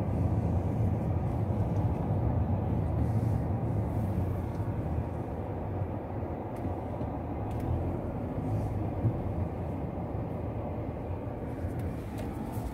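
Car driving slowly, heard from inside the cabin: a steady low rumble of engine and tyres, easing a little about halfway through.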